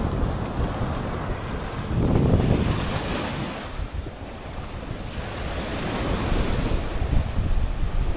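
Sea waves washing up onto a beach, with wind buffeting the microphone; the surf swells about two seconds in and builds again near the end.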